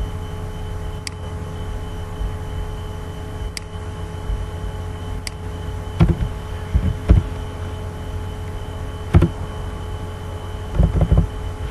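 Steady electrical hum and hiss from the recording setup. Over it come a few faint sharp clicks and several soft low thumps from keyboard and mouse use while code is typed.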